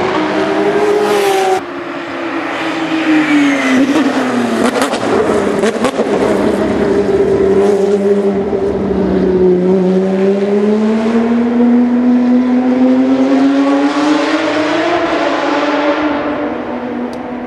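Porsche 997 GT3 Cup race car's 3.6-litre flat-six at racing speed: after a sudden cut about a second and a half in, the engine note falls as the car slows, with a few sharp pops, then rises steadily as it accelerates away and eases off near the end.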